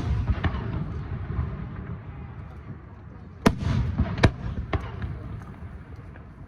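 Aerial fireworks shells bursting: the rumbling echo of a burst trails off at the start, then about three and a half seconds in three sharp bangs come in quick succession and their echo rolls away.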